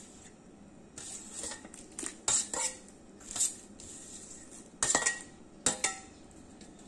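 A steel spoon clinking and scraping against a stainless steel tray and the rim of a metal pot as kaffir lime leaves are scooped up and tipped in: about seven short clinks, the sharpest two about five and six seconds in, one with a brief ring.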